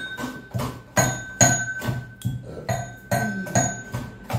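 Pestle pounding in a small metal mortar: sharp clinks about three a second, each leaving a high metallic ring.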